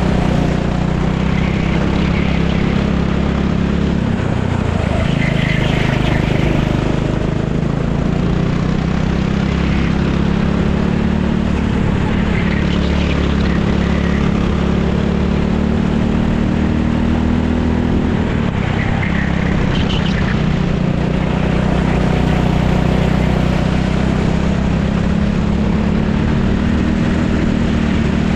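Racing kart engine running hard through a lap, heard onboard. The engine note climbs steadily, drops twice, about four seconds in and again about two-thirds of the way through, as it slows for corners, then picks up again.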